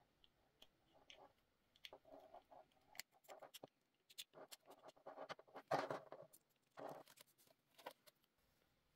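Faint clicking and rustling of a steel mesh watch strap being handled and fitted onto a Samsung Galaxy Watch 6's lug. Scattered small clicks, with a louder burst of scraping and rattling about six seconds in.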